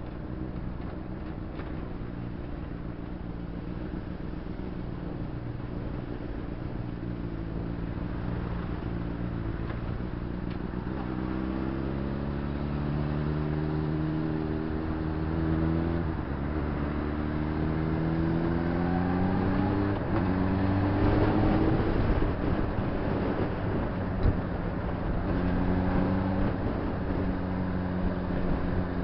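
Honda CBR600RR's inline-four engine under way, its pitch climbing in several rising runs with short drops between them as it pulls through the gears, then settling steadier near the end, over a steady rush of wind and road noise.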